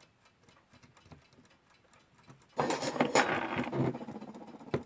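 Westclox Big Ben Style 1 alarm clock movement ticking quietly and evenly, running after oiling. About two and a half seconds in, a much louder rattling clatter breaks in for a second or so, then dies away.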